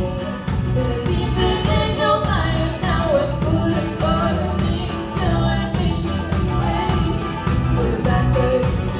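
A band playing the song without sung words: a steady beat with strong bass and a melody line over it.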